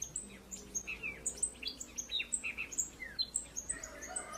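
Male Jamaican euphonia (blue quit) singing: a quick run of short, high chips, each dropping sharply in pitch, several a second.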